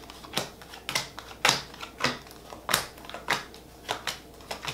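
Tarot cards being shuffled and handled on a table: a string of about ten irregular, sharp snaps and clicks.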